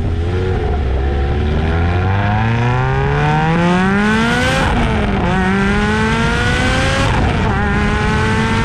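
Lotus Exige exhaust under hard acceleration. The engine note climbs for about four seconds, drops sharply at a gear change, then climbs again, with a second brief drop a little after seven seconds.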